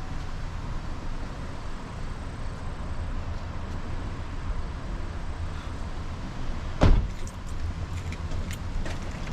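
A steady low rumble, with one sharp knock about seven seconds in and a few lighter clicks after it.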